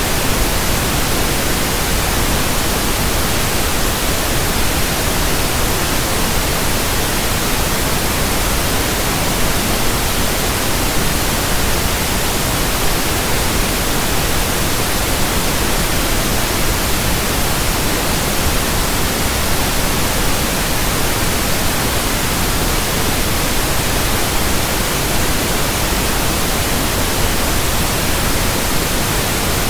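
Steady generated pink noise: an even, unchanging hiss spread across the whole range from deep rumble to high hiss, with no tones or events in it.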